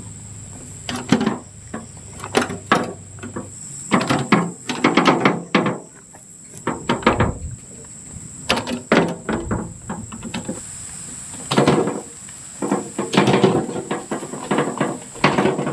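Irregular knocking and clattering, objects being handled or struck in quick clusters, over a steady high-pitched drone of night insects.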